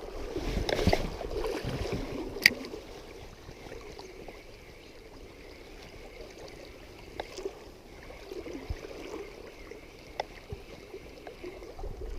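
Shallow trout stream running, louder for the first few seconds, with one sharp click about two and a half seconds in.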